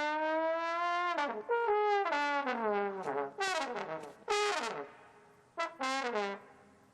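Trombone playing silly notes. A long held note slides down about a second in, then a string of short notes follows, several of them sliding downward.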